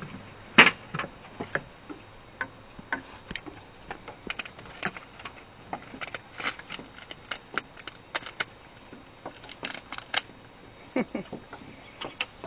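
Plastic wrapping on a large dog bone crinkling and crackling in short, irregular snaps as it is cut and pulled open by hand.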